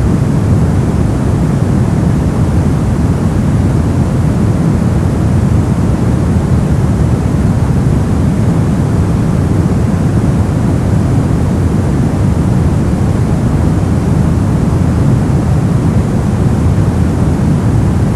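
Brown noise: a steady, deep rumbling hiss, strongest in the bass, falling away toward the treble, with no change or pattern.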